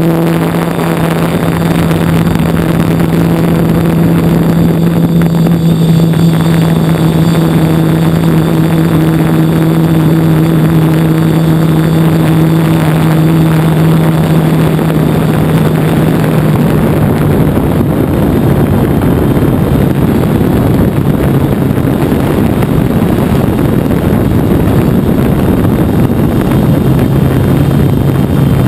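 Hexacopter's six electric motors and propellers running with a steady hum, picked up by the camera mounted on the craft along with the rush of air. About halfway through, the even hum breaks up into a rougher, noisier rush, and a lower hum comes back near the end.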